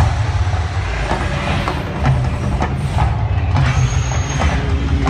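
Man-made volcano attraction erupting: a deep steady rumble with faint percussive hits, and hissing rushes of gas-fired flame bursts, one right at the start and a longer one about three and a half seconds in that lasts about a second.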